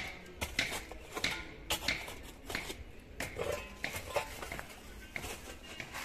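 Metal hand digging tool striking and scraping stony soil in a pit, irregular clinks and knocks about two a second.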